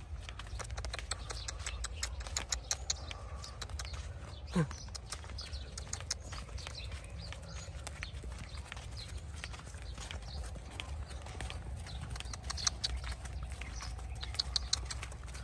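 Zebu cattle and a person walking on a sandy dirt track: an uneven patter of hoof and foot steps over a steady low rumble. About four and a half seconds in, a short tone slides sharply down in pitch.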